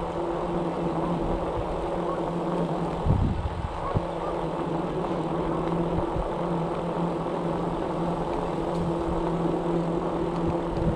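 Electric bike's motor humming steadily as it rides along a paved trail, over road and wind noise. There is a brief low thump about three seconds in.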